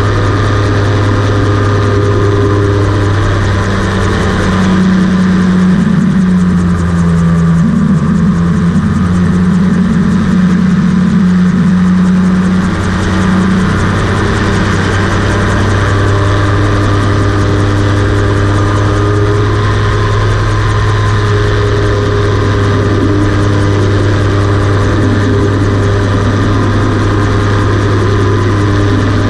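Rotax 582 two-stroke twin engine and pusher propeller of a homebuilt float gyroplane droning steadily in flight. From a few seconds in until about halfway, a wavering higher tone rides over the drone.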